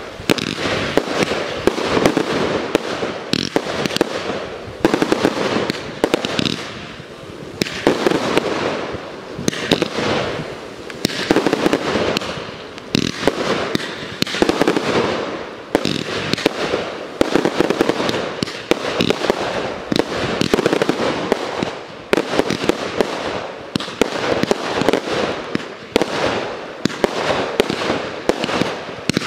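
Aerial fireworks display: many shells bursting in rapid succession, the bangs and pops coming several a second, with the loudness swelling and easing every couple of seconds.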